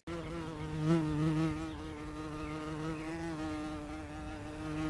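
Flying insect buzzing close by: one steady buzz with a slight wobble in pitch, a little louder about a second in.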